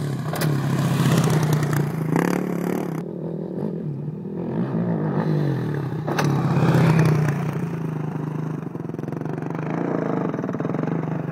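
Sport ATV engine revving up and easing off again and again, with a few sharp knocks along the way.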